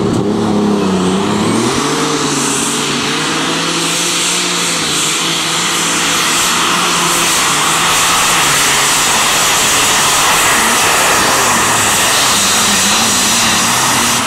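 A pulling tractor's engine at full throttle as it drags a weight-transfer sled down a dirt track: a wavering, revving engine note as it launches, then a loud, steady, rough engine sound for the rest of the pull.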